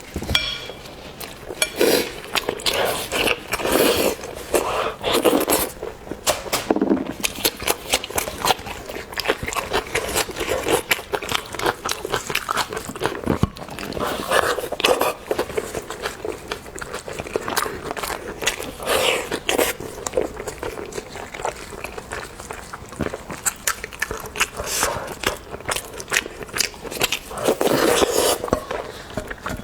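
A person biting and chewing food, with many short crunchy, crackling clicks throughout.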